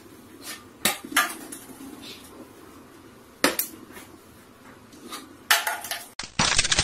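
A few separate sharp clinks and knocks of hard objects, spaced irregularly over a quiet room background.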